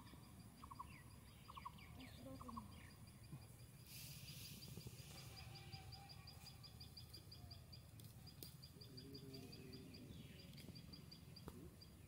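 Faint rural outdoor ambience: a high, thin chirp repeated several times a second runs in the background, with a brief hiss about four seconds in.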